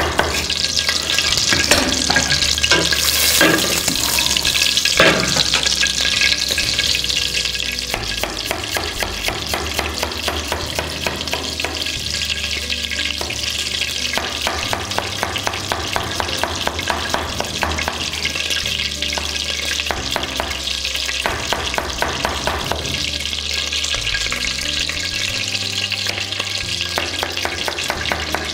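Knife dicing onion on a plastic cutting board: a steady run of fast, even taps.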